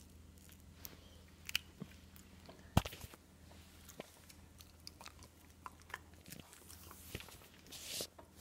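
A dog biting and chewing teriyaki beef jerky: irregular sharp clicks and crunches, the loudest a little under three seconds in.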